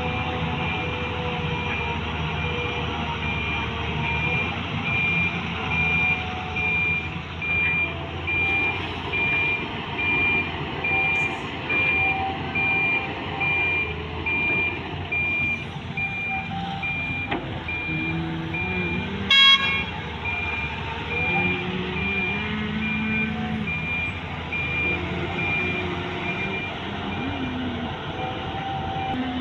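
Volvo EC210B excavator's diesel engine running under load, with an electronic warning alarm beeping steadily over it. A short horn toot sounds about two-thirds of the way through.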